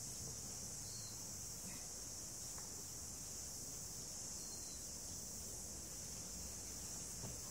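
Steady, high-pitched insect chorus, with two faint short chirps about one and four and a half seconds in.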